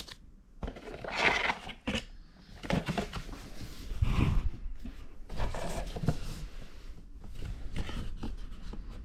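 A processor's retail packaging being handled and opened: irregular rustles, scrapes and clicks, some sharper than others.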